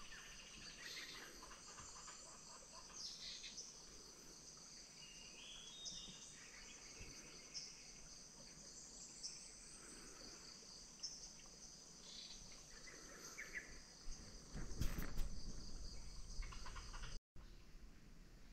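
Tropical forest ambience: insects droning steadily in a high pitch, with scattered short bird chirps. About fifteen seconds in there is a brief, louder low rumble.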